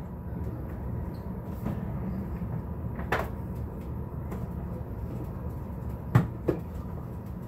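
Kitchen cupboard doors opening and closing: a knock about three seconds in and two more close together near the end, over a steady low hum.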